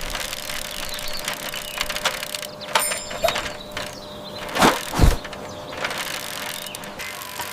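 Dense crackling and clattering, like wood cracking and splintering, with two louder sudden knocks about four and a half and five seconds in.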